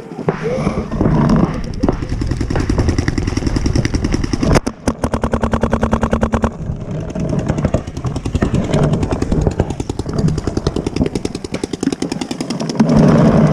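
Paintball marker firing rapidly, heard from a camera mounted on its barrel: a fast, even string of shots at about fifteen a second from about four and a half to six and a half seconds in, with more scattered shots throughout.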